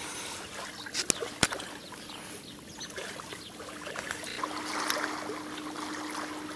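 Water lapping with a faint steady hum that grows stronger in the second half, and two sharp clicks about a second in.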